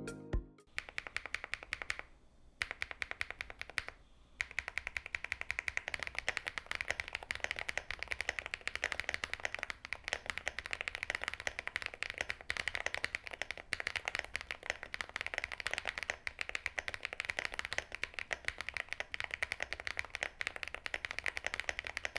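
Fast, steady typing on a QK75 mechanical keyboard fitted with Akko V5 Pro Creamy Yellow linear switches: a dense stream of keystroke clacks, broken by two brief pauses near the start.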